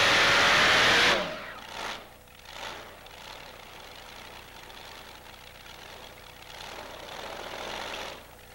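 Multi-engine modified pulling tractor running at full throttle, then shut back abruptly about a second in as the pull ends; afterwards the engines idle at a much lower level.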